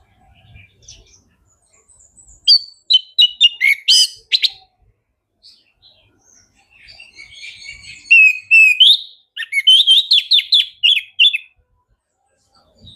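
Orange-headed thrush singing loudly: a short run of quick, varied whistled notes about two and a half seconds in, then a longer, faster run from about seven to eleven seconds.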